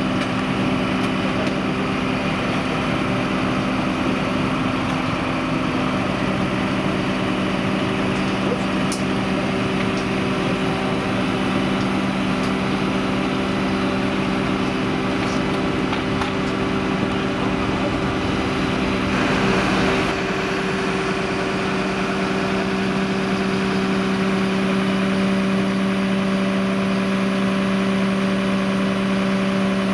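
Turntable-ladder fire truck's diesel engine running steadily to power the aerial ladder's hydraulics while the ladder is moved, a steady hum whose pitch shifts about six seconds in. Around twenty seconds in there is a brief rush of noise, and the hum changes again.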